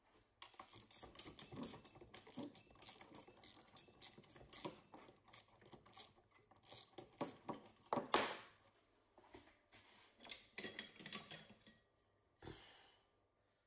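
Metal hand tools and suspension parts clinking and clattering in quick, irregular taps while the front suspension of a large-scale RC car is worked on by hand. The loudest clatter comes about eight seconds in.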